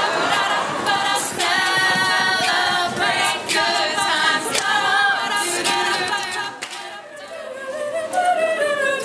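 A cappella group singing, several voices in harmony; the singing drops briefly about seven seconds in and picks up again.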